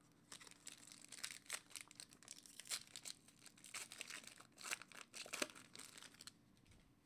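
Foil wrapper of a trading-card pack being torn open and crinkled by hand: a quick, irregular run of crackles and rustles that stops about a second before the end.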